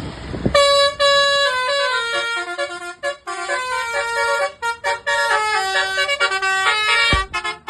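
Multi-tone 'telolet' bus air horn playing a fast tune of short stepped notes, starting about half a second in.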